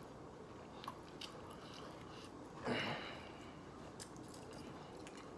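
A person chewing a mouthful of wet burrito, quiet and close, with a few faint clicks and one short, louder noisy sound nearly three seconds in.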